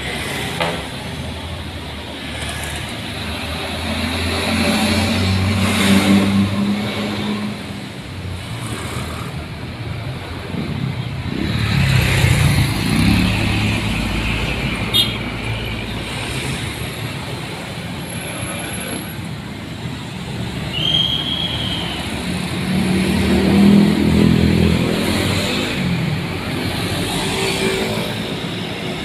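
Road traffic passing close by: trucks, cars and motorcycles going past one after another, their engines swelling and fading three times as heavier vehicles pass. A brief high chirp about two-thirds of the way through.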